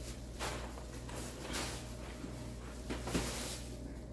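Several short rustling and handling noises, about a second apart, as items are moved about, over a steady low hum.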